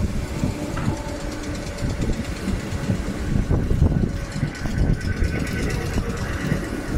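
Merseyrail electric multiple unit moving along the platform: wheels rumbling with irregular clicks and knocks over the rails, under a faint steady whine from the train.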